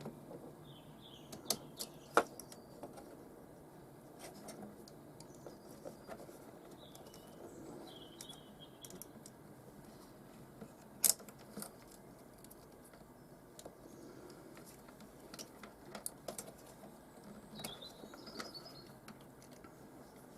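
Scattered small clicks and rattles of crimp connectors and wiring being handled and pushed onto terminals, the sharpest click about 11 seconds in.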